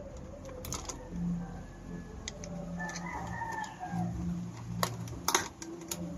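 A rooster crows once, about three seconds in, over a low steady hum. Sharp clicks and snips of pliers working copper wire ends come now and then, the loudest a little before the end.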